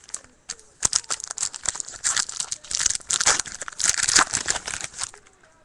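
A hockey-card pack wrapper being torn open and crinkled, a dense crackle that starts about half a second in and stops near the end.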